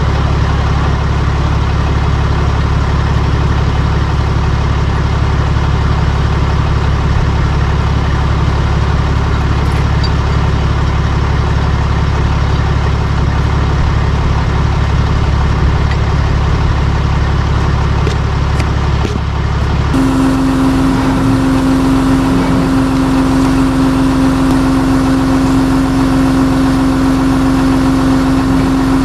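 Tow truck engine running steadily at idle. About two-thirds of the way through the sound changes abruptly to a steady, higher-pitched hum.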